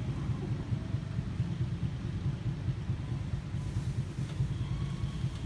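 A steady low rumble that flutters unevenly in level, with nothing else standing out above it.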